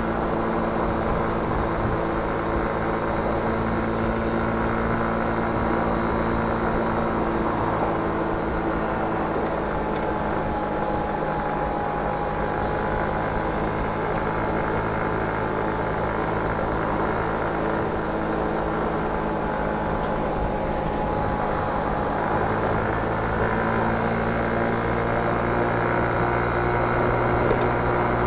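Motor scooter engine running at a steady cruise, heard from the rider's seat, with wind and road noise over it.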